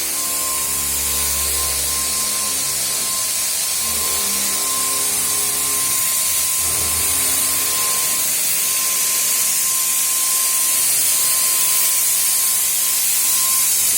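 Paint sprayer spraying with a steady hiss and a thin steady whine, with music playing underneath during the first half.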